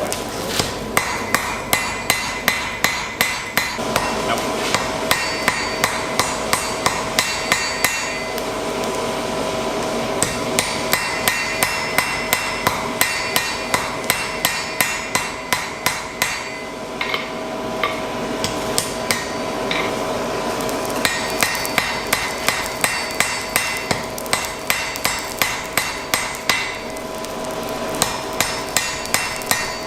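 Blacksmith's hand hammer striking hot iron on an anvil in fast, even runs, each blow ringing, with short pauses between runs. The iron is being forged to shape, the corners pushed down.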